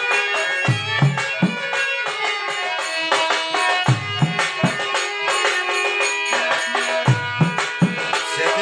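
Instrumental passage on violin and harmonium: the violin carries the melody over held harmonium chords. A hand drum beats along in groups of three strokes that recur about every three seconds.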